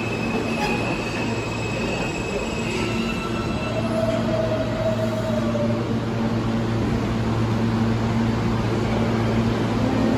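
R160 New York City subway train running through the station: a steady rumble with a constant low electric hum. Thin whining tones come and go over it, a high one fading out about three seconds in and a lower one rising and falling a few seconds later.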